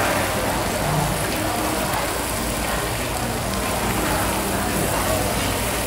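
Beef, sliced pork and shrimp sizzling on a hot tabletop grill: a steady, even hiss.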